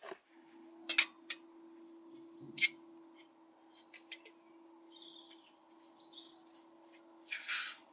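Sharp metallic clicks as a small gas canister camping stove is handled and its burner fitted to the canister. Two loud clicks come about one and two and a half seconds in, with smaller ticks between them. Birds chirp in the background, and a short hiss comes near the end.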